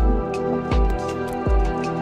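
Background music: sustained chords over a steady deep drum beat, about one beat every three-quarters of a second.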